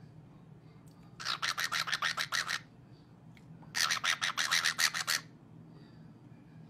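Cockatiel giving two bursts of rapid, rasping clicks, about eight a second, each lasting a second and a half; the first starts about a second in, the second near the middle.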